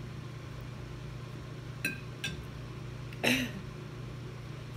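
A metal fork clinks twice lightly against a plate about two seconds in, followed shortly by a brief breathy sound from the eater. A steady low hum runs underneath.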